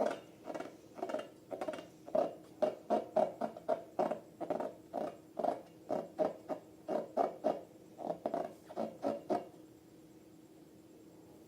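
Slime being squeezed and worked by hand, a quick run of wet squishing sounds about three a second that stops about nine seconds in.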